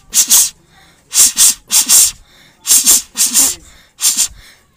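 A boy's mouth-made imitation of a train releasing air before it starts: a run of short, sharp hisses, mostly in quick pairs.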